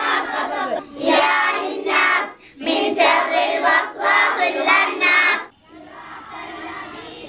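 A group of children's voices singing or chanting together in several phrases with short breaks between them. The singing stops about five and a half seconds in, leaving a quieter background.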